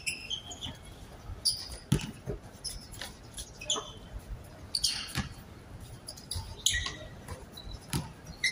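A basketball thudding on the court several times, the strongest about two seconds in, with short high sneaker squeaks between the thuds.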